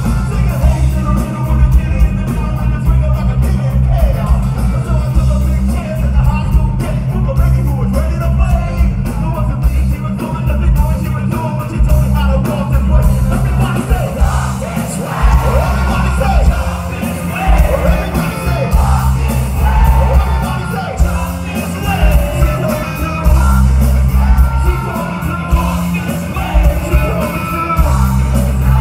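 Live rock band with electric guitars, bass guitar and drums playing loudly, with rap and sung vocals through the PA over it.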